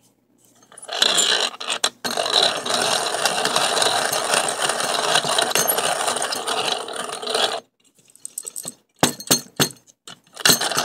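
Hand-crank coffee grinder grinding whole coffee beans: steady grinding from about a second in until roughly three-quarters of the way through, then a few short clicks.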